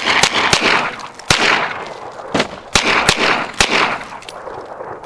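Gunfire: about eight shots in quick, uneven succession over roughly four seconds, each followed by a short echo, with a fainter shot near the end.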